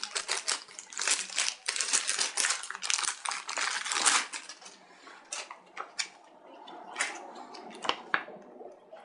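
Packaging being handled: dense crinkling and rustling of paper and plastic wrapping for about four seconds as the quick start guide is taken out, then a few separate rustles and light taps.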